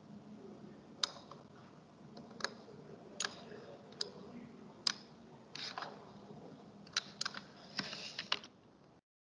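Scattered single clicks of a computer mouse and keyboard, about ten, irregularly spaced, with a quick cluster near the end, over faint room tone.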